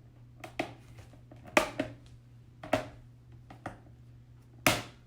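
Plastic panels of a grow-out pen being pushed together, their interlocking tabs snapping into place: a series of sharp clicks and knocks, the three loudest about a second and a half in, just under three seconds in, and near the end.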